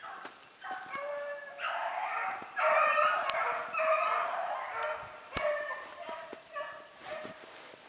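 Rabbit hounds baying on a rabbit's trail, several voices overlapping in repeated calls, loudest about three seconds in.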